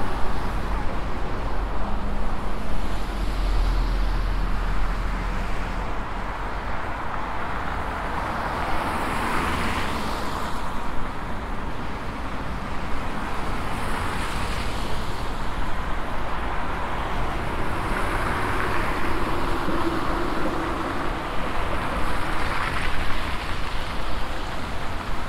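City road traffic: a steady wash of tyre and engine noise, with several cars passing one after another, each swelling and fading as it goes by.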